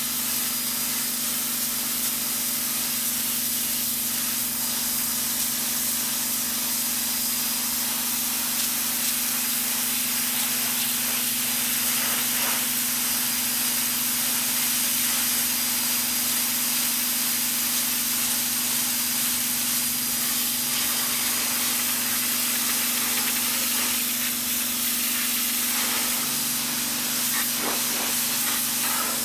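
Sun Joe SPX4000 electric pressure washer running, its jet spraying onto concrete with a steady hiss over a steady low hum.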